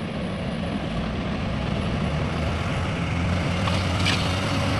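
Heavy vehicle's diesel engine running steadily and slowly growing louder, with a brief light tick about four seconds in.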